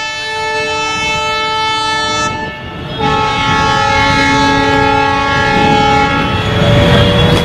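Train horn sounding in two long, steady blasts, each a chord of several notes; the first breaks off a little past two seconds in, and the second, on a different, lower chord, runs from about three seconds in to about six and a half.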